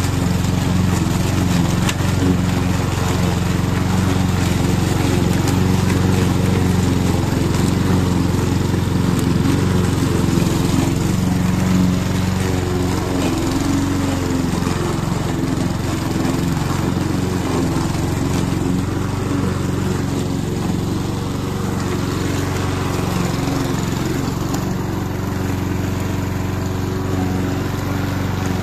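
Roller lawn mower running steadily as it cuts grass, putting stripes into the lawn.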